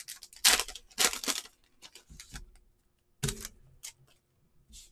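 Foil wrapper of a trading-card pack crinkling and tearing as it is opened and the cards are slid out: a run of short crackles and rustles, densest in the first second and a half, then thinning out.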